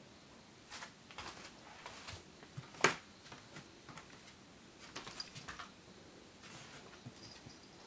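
Soft scuffs and rustles of movement across a wooden floor and tatami, with one sharp click about three seconds in.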